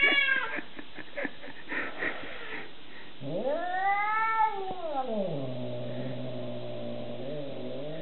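Cat caterwauling: a few short broken cries, then from about three seconds in one long yowl that rises, falls, and sinks into a low, drawn-out moan. It is the hostile call of a cat faced with another cat on the other side of a glass door.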